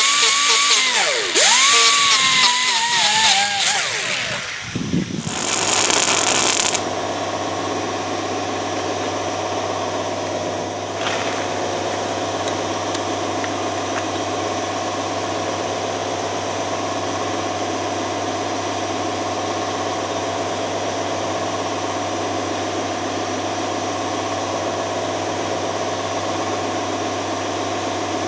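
A power tool runs in loud, stop-start bursts with a wavering whine for about the first seven seconds, working on a broken exhaust manifold bolt. Then it stops, and a steady machine hum carries on.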